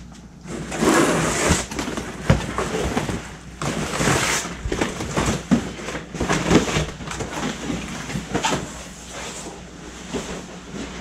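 A large plastic sheet being picked up and handled, rustling and crinkling in irregular bursts, loudest about a second in and again around four seconds in.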